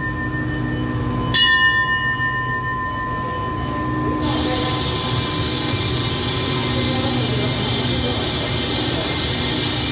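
A station bell struck once, ringing and fading, the signal for the train to depart. About four seconds in a steady hiss starts and runs on as the express train's carriages pull away from the platform.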